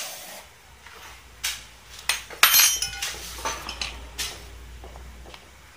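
Metal tools and parts clinking and knocking, a handful of separate strikes, one about halfway through ringing briefly, over a low steady hum.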